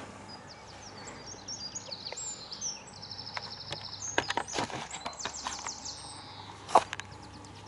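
Small birds singing, with high chirps and rapid trills, over a low steady outdoor background. A few sharp clicks and knocks of handling come about two-thirds of the way in, and one louder click near the end.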